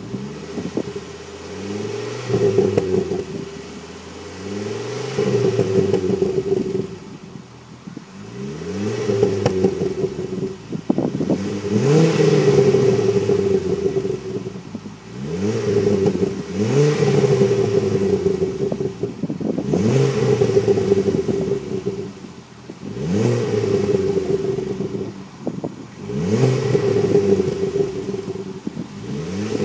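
Ford Focus ST with a Mongoose cat-back exhaust, revved repeatedly while parked: about eight rev blips, each climbing in pitch and dropping back toward idle, roughly every three to four seconds.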